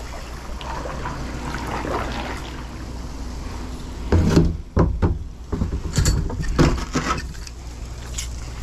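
Gear being handled in a plastic kayak: a steady low rumble, then a string of sharp knocks and clunks from about four seconds in as the fishing magnet is brought aboard.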